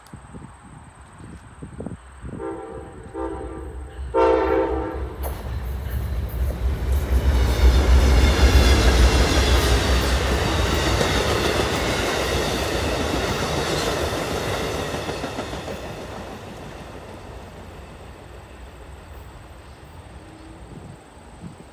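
Amtrak passenger train hauled by two GE P42DC Genesis diesel locomotives: its horn sounds three short blasts, the last the longest and loudest, then the locomotives' diesel rumble and the rattle of wheels on rail swell as the train passes at speed and fade away as it recedes.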